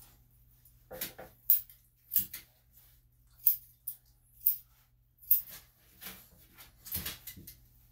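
Grooming scissors snipping a Shih Tzu's coat: a string of sharp, irregular snips with pauses between them.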